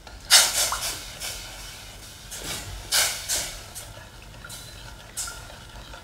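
Wooden spatula stirring granulated sugar and water in a stainless-steel saucepan, dissolving the sugar into a syrup. It scrapes the bottom of the pan in several quick strokes, the loudest about a third of a second in and around three seconds in.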